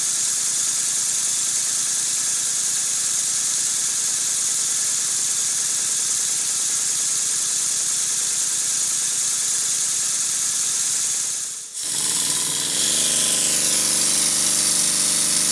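Stuart Double 10V twin-cylinder model steam engine running on compressed air, with a steady loud hiss of air. The slide valve, just cleaned and its slot widened, is blowing less but the valve timing is not yet adjusted. Near the end the sound breaks off sharply and starts again, rising in pitch as the engine speeds up to a high speed.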